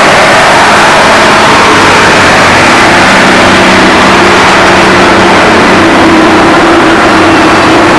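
Large tour coaches' diesel engines running loud and close, with a steady low tone held from about three seconds in.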